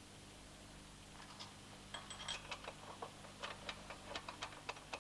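Light metallic clicks and clinks, as of hand tools and fittings on a body straightening bench. They start about two seconds in and come several a second, with a brief high ring near the start, over a faint steady hum.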